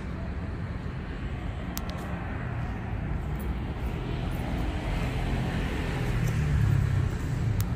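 Outdoor street ambience: a steady low rumble of road traffic, growing louder about six seconds in.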